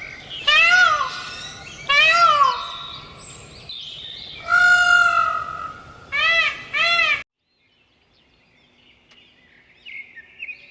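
An animal calling five times, each call rising then falling in pitch. The fourth call is held longer and the last two come close together. The calls cut off suddenly, and faint bird chirping follows near the end.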